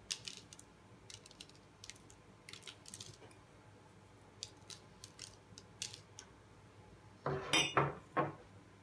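Sesame seeds sprinkled by hand onto parchment paper and dough, heard as small scattered ticks. Near the end comes a louder short clatter of a small dish being handled on a hard surface.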